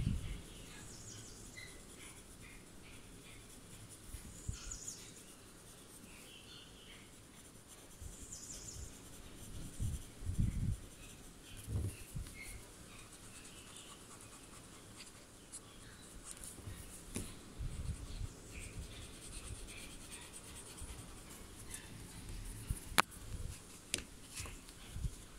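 Graphite pencil scratching and rubbing on a paper tile as it shades, with a few soft knocks of hand and pencil on the table and one sharp click near the end.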